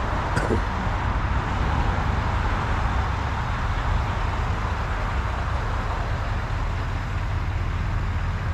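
Steady low rumble of a car driving, heard from inside the cabin, with a short click about half a second in.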